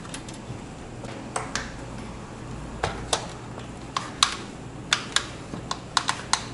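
Scattered sharp plastic clicks and taps, about a dozen over several seconds, from power-supply cable connectors being handled and seated inside an open desktop PC case while the power supply is swapped for a test.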